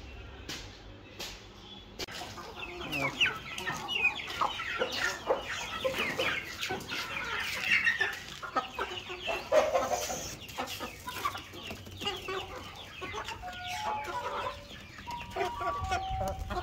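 A flock of young Aseel chickens clucking and peeping, many calls overlapping, as food is brought to them at feeding time. The calling rises about two seconds in and goes on busily to the end.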